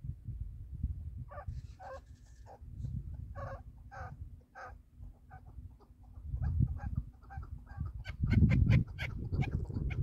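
Chukar partridge calling: a run of short clucking notes that comes faster and louder in the last couple of seconds. A low wind rumble on the microphone runs underneath and swells near the end.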